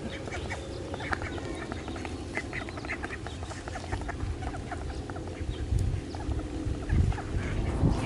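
A flock of mallard ducks giving short, soft calls, many at once, over a low rumble that grows louder in the second half.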